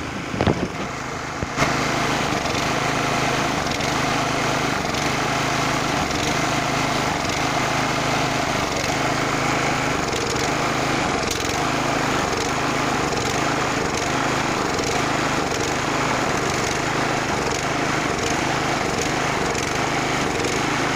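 Small single-cylinder petrol engine running steadily under load, driving a mill that grinds green leaves fed into it by hand. It grows louder about a second and a half in and then holds a steady, even drone.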